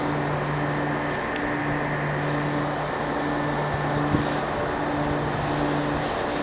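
Steady mechanical hum of running machinery, its low tone breaking off and resuming about every second and a half, with a soft knock about four seconds in.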